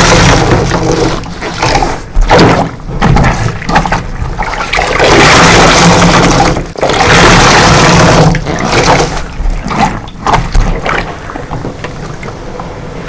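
A soapy sponge full of detergent and cream cleanser squeezed repeatedly by gloved hands: wet squelching and running liquid. There are two long, loud squeezes in the middle and shorter, quieter squelches toward the end.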